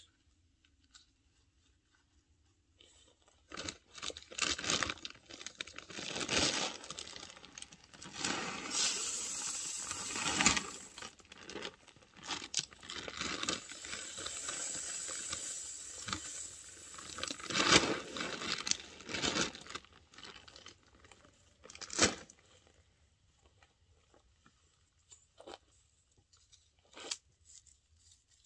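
Shelled deer corn poured from a feed sack onto bare ground: a steady rattling rush of kernels with the sack crinkling, for well over ten seconds, then a few scattered rustles and clicks.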